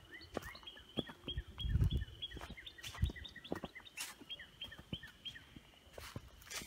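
A bird singing a quick, steady run of short repeated chirps, several a second, over a thin steady high tone. Scattered footsteps crunch through dry grass and leaves.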